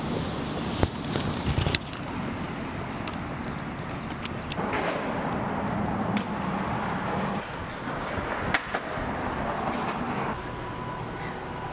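Street traffic noise: a steady hiss of cars on the road, with a few sharp clicks and knocks. The noise shifts abruptly a few times.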